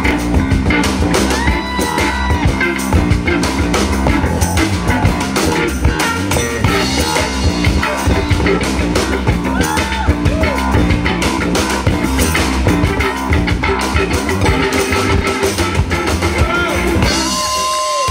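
Live rock band playing: electric guitar and vocals over a steady drum kit beat. Near the end the band cuts out, leaving one held note ringing.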